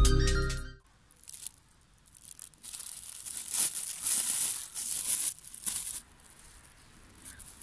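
A thin plastic bag crinkling and rustling in the hands as powder is emptied out of it. The rustling is loudest in the middle and dies down near the end.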